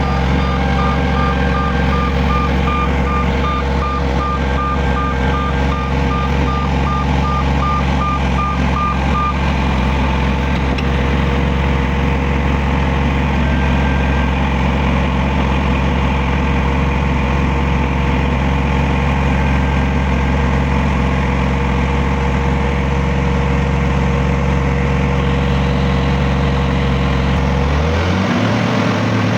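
Heavy diesel road-construction machinery running steadily, with a reversing alarm beeping rapidly for the first nine seconds or so. Near the end the low engine note drops and changes.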